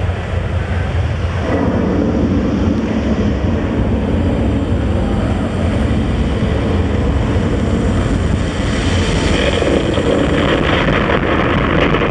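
Loud, dense arena noise with a deep rumble and no clear music or voices, thickening about a second and a half in and growing brighter and crackly near the end.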